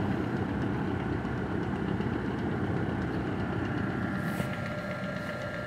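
Vintage 1940s–50s Buffalo Forge belt-driven attic fan running: the electric motor drives the shaft and large blades through a pulley belt, giving a steady low hum and whir. Its blades are not yet balanced.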